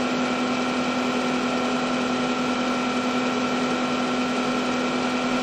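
Manual milling machine's spindle running with the end mill lifted out of the cut, not cutting: a steady hum with a fainter high whine.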